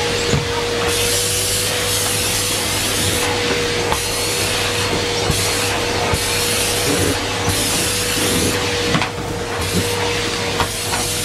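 Numatic Henry Pet cylinder vacuum cleaner running with a steady motor whine, its suction rush changing as the nozzle is worked over the stairs, with several short knocks of the nozzle against the steps.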